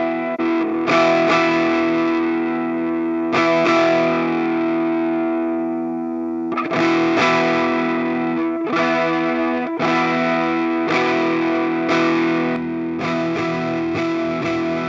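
Electric guitar played through an overdrive and effects pedalboard: distorted chords strummed every second or two and left to ring out.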